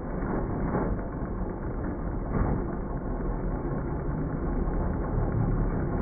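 Robot's puck-shooter motors spinning its green flywheels, a steady low drone, with a couple of brief knocks about one and two and a half seconds in.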